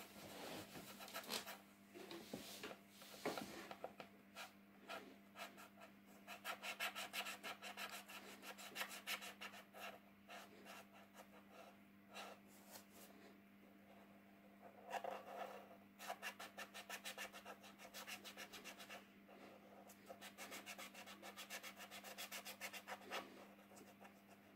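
Thick paint-marker tip scratching on paper in runs of quick back-and-forth strokes as an area is coloured in, with short pauses between runs. A faint steady low hum runs underneath.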